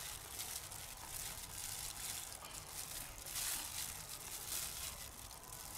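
Faint sizzling and crackling from chicken wings grilling over hot charcoal, with a light hiss and a few brief flickers of crackle.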